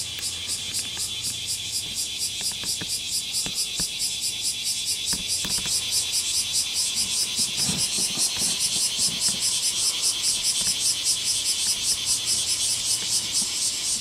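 Cicadas singing in chorus: a loud, high buzzing that pulses about four times a second and swells louder a few seconds in.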